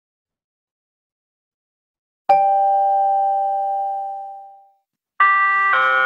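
Recorded listening-exam signal chime: a single bell-like tone about two seconds in that fades away, then a two-note chime near the end, marking the start of the repeated text.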